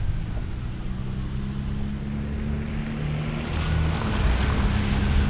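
Car driving on a rain-soaked road: a steady low engine and road hum with wind buffeting the microphone, and the hiss of tyres on wet pavement that swells about three and a half seconds in.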